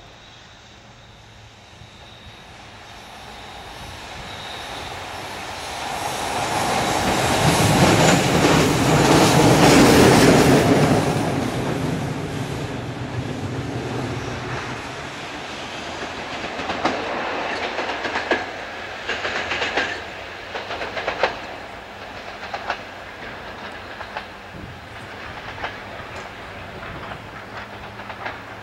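A single electric locomotive running light passes, its rail noise swelling to a peak about ten seconds in and then fading. After that come sharp, irregular clanks as the locomotive's wheels cross rail joints and points.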